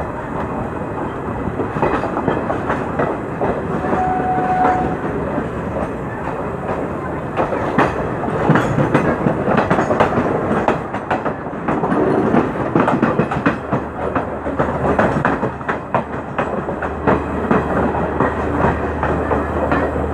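Passenger train coaches passing close by, their steel wheels clattering and clicking over the rail joints with a steady rumble.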